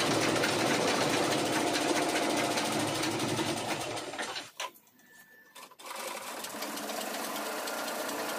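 Household sewing machines stitching at speed, a fast, dense rattle of needle and mechanism. It stops abruptly a little past halfway, falls nearly silent for about a second, then starts up again more quietly.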